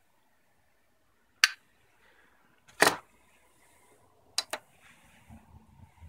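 Sharp handling clicks over near silence: one about a second and a half in, a slightly longer knock near the middle, and a quick double click later on. A faint steady tone sits underneath from about two seconds in.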